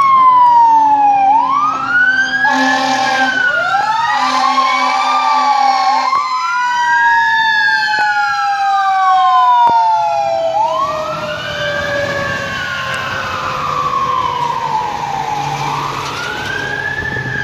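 Fire apparatus sirens: an electronic wail rising and falling every few seconds over a mechanical siren winding down in one long falling tone, with two air horn blasts about 3 and 5 seconds in. A heavy truck engine rumbles underneath in the second half as the rigs go by.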